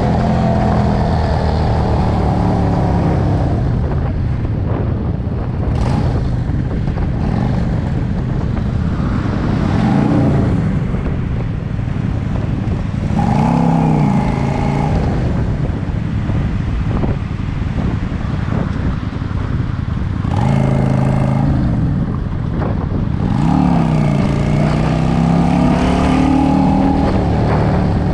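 Motorcycle engine running while riding, its pitch rising and falling several times as the rider speeds up, slows and changes gear, over a steady low rumble of wind on the microphone.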